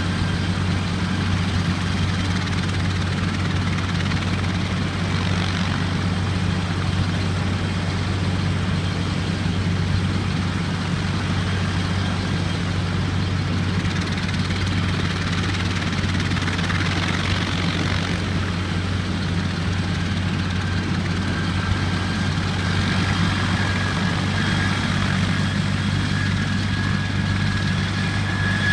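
Air ambulance helicopter running on the ground: a steady low rotor-and-engine drone with a thin turbine whine, the whine growing a little louder near the end.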